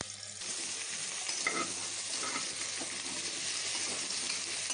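Carrot pieces sizzling as they sauté in hot ghee in a pressure cooker, the sizzle rising sharply about half a second in as the carrots go into the pan.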